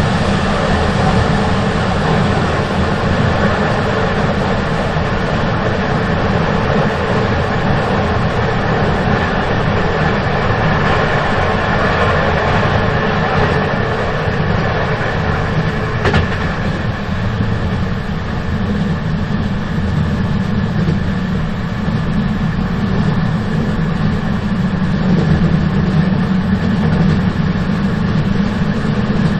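Moving train running steadily, a continuous rumble of wheels on rails, with one sharp click about halfway through.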